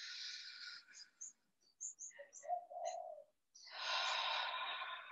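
A woman taking a long, deep breath: a breathy inhale that fades about a second in, a few small mouth clicks, then a long audible exhale through the open mouth starting about three and a half seconds in.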